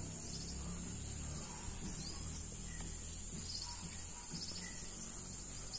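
Outdoor garden ambience: a steady high-pitched insect drone, with a few faint short bird chirps over a low rumble.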